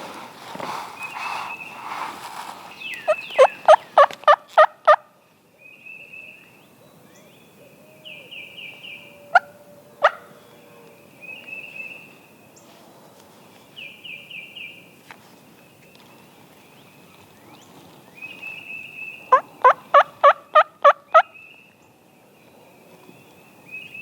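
Eastern wild turkey gobbler gobbling twice, a rapid rattling gobble about three seconds in and another near the twenty-second mark. Between the gobbles a smaller bird repeats short high-pitched calls.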